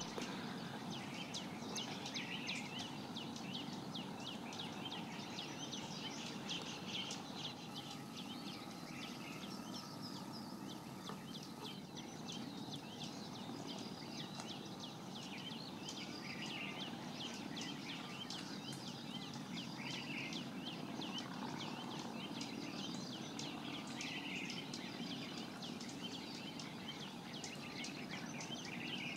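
Many birds chirping and calling in a dense, continuous chorus over a steady low background rumble.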